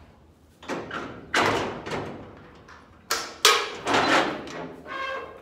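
Aluminum livestock trailer's rear door and latch being worked, giving a series of loud metal clanks and thuds, about half a dozen, with a brief metallic ring near the end.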